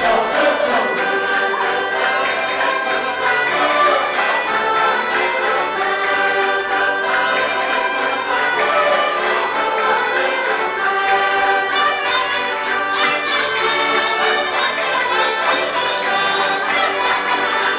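Traditional Portuguese folk dance music, a lively tune played by instruments with singing voices.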